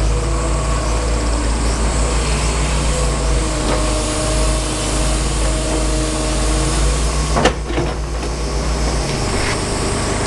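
Komatsu PC228 hydraulic excavator running steadily with a low drone and faint whining tones over it, and a single sharp clank about seven seconds in. The low drone drops near the end.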